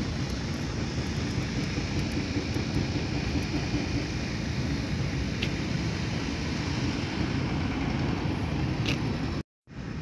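Steady low rumble of road traffic, with a car driving through the junction. It cuts out for a moment near the end.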